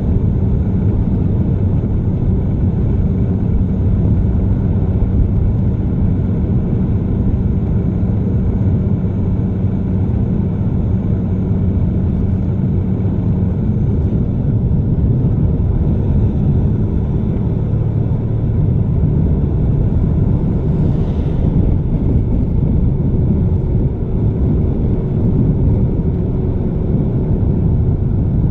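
Diesel engine of a log truck's semi tractor running while driving, heard from outside the cab beside the exhaust stack with wind and road noise: a steady low rumble whose engine tone changes about halfway through.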